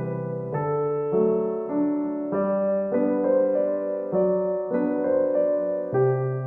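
Background piano music: soft sustained chords that change every half second or so.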